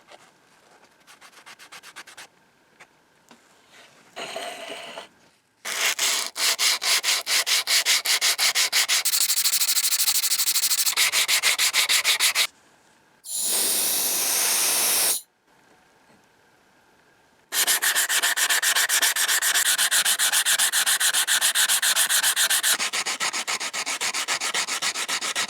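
Sandpaper rubbing a pitted cast iron drawer pull in quick back-and-forth strokes, about five a second, in two long stretches. Between them comes a short, steady hiss of a couple of seconds.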